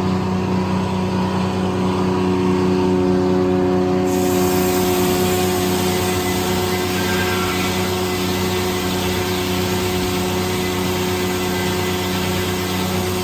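Corley circle sawmill running with a steady engine-like drone and hum; about four seconds in a bright hiss joins as the blade cuts into a white oak log.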